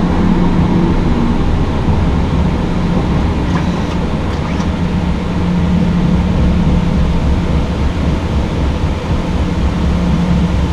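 Airbus A320 flight deck during the initial climb at full takeoff (TOGA) thrust: a steady, loud blend of engine noise and airflow rush with a low hum underneath.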